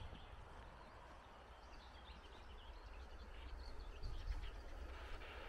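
Faint birds chirping, short high calls from about two seconds in, over a steady low outdoor rumble.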